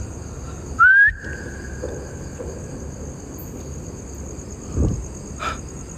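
Insects, likely crickets, trilling steadily and high-pitched in the background. About a second in comes a short, loud, rising squeak that holds its pitch briefly, and a low thump sounds near the end.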